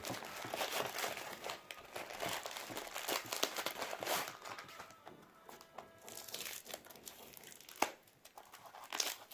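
Packaging crinkling and rustling as the box of a watch repair tool kit is unwrapped, with a sharp click a little before the end.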